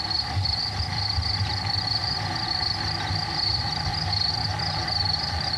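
A steady chorus of crickets chirping over a low, even hum.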